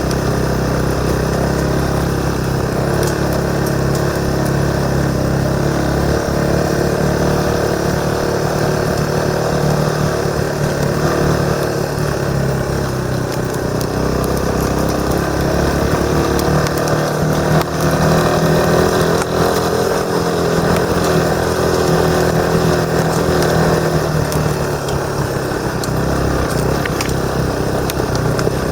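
Motorcycle engine running under way, its note rising and falling with the throttle: dipping a little about a third of the way in, climbing after the midpoint, and easing off near the end.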